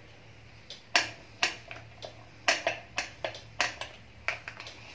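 Hot cooking oil in a kadhai crackling, heated for deep-frying, with about a dozen sharp, irregular pops starting about a second in.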